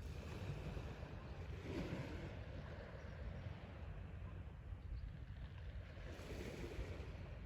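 Sea waves washing onto the shore, swelling twice, in the first two seconds and again about six seconds in, over a low rumble of wind on the microphone.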